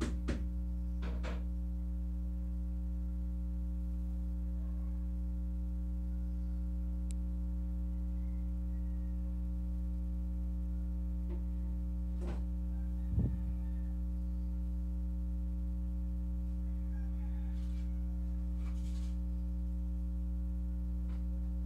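Steady electrical mains hum with many overtones, with a few faint clicks and one short knock about thirteen seconds in.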